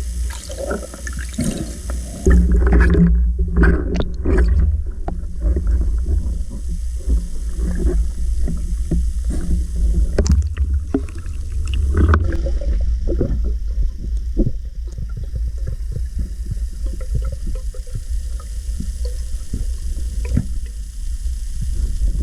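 Water moving and gurgling against an action camera's housing while snorkelling or diving, a steady low rumble with many small irregular knocks and clicks.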